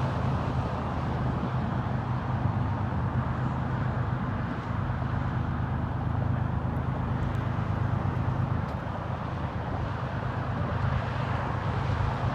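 Steady low rumble of an approaching diesel freight train, led by a GE ES44AC locomotive, before it sounds its horn.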